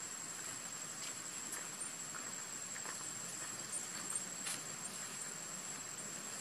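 Outdoor ambience: a steady hiss with a constant high-pitched whine, broken by a few faint scattered ticks and taps.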